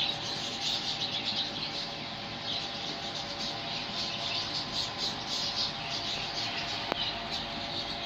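Many small caged birds chirping continuously in a dense chatter of high tweets, over a steady hum.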